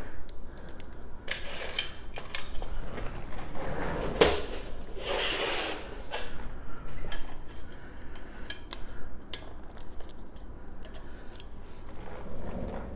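Scattered clicks and clinks of small metal parts and tools being handled, with a longer rustling scrape about five seconds in.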